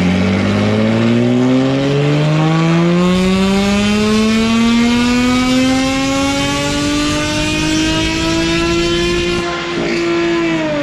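Lotus Exige Cup 430's supercharged 3.5-litre V6, through its stock titanium exhaust, on a dyno pull under full load. The engine note climbs steadily for about nine seconds and levels off near the top of the rev range. It falls away as the throttle is lifted near the end.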